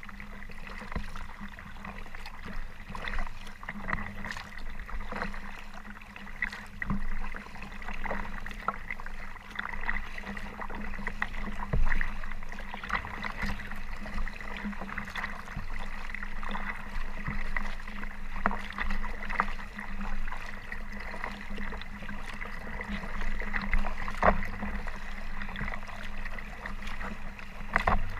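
Choppy water splashing and slapping against a kayak, with many small irregular splashes and knocks and a louder hit about twelve seconds in.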